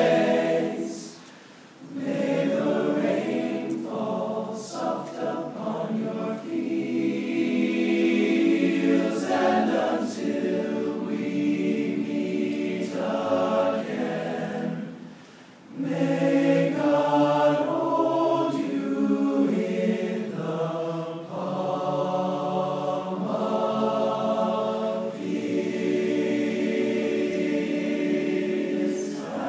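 A large all-male a cappella choir singing a song in close harmony, with two short breaks between phrases: one near the start and one about halfway through.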